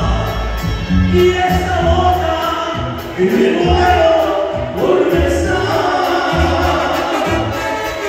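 Live regional Mexican band music played loud through the hall's PA: a sung melody over held instrument notes and a pulsing bass line.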